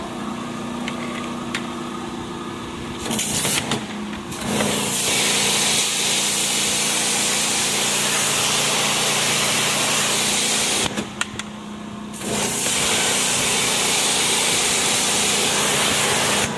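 Pressure washer running with a steady motor hum, then spraying water in two long bursts: the spray starts a few seconds in, stops for about a second near the middle, and starts again.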